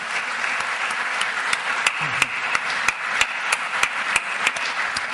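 Audience applauding, with one set of sharp claps standing out in an even beat of about three a second.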